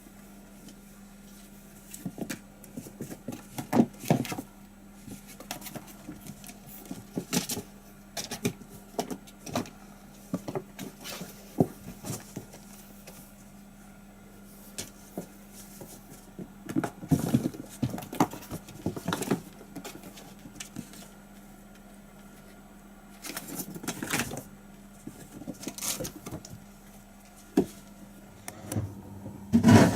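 Kittens playing on a hard floor: scattered light taps, knocks and rustles in irregular clusters, over a steady low hum.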